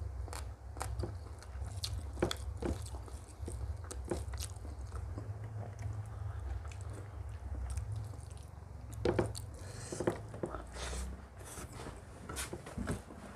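Close-miked eating: chewing and biting food with many small crunches and wet mouth clicks, and a few louder crunches about nine seconds in, over a steady low hum.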